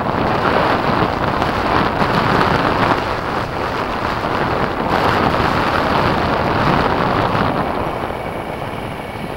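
Wind rushing over a bike-mounted camera's microphone while cycling, mixed with the steady noise of road traffic passing in the next lane. It eases slightly near the end.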